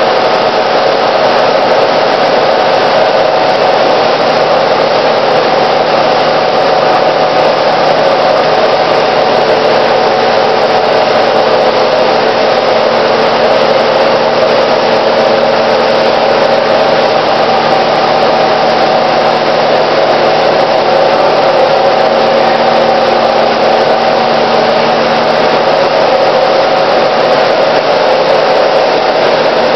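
Froth flotation cells running: a loud, steady whirring drone of the agitator motors and air, with a constant hum and no change in pitch.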